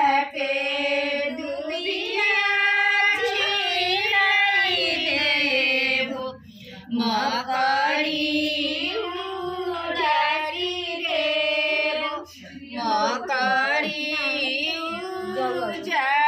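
A woman's voice singing a Chhath devotional folk song (Chhath geet) in long, drawn-out phrases, with short breaths between phrases about six and twelve seconds in.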